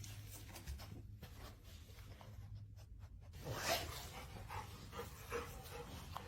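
Faint dog panting, with small scuffing noises and one louder noise about three and a half seconds in.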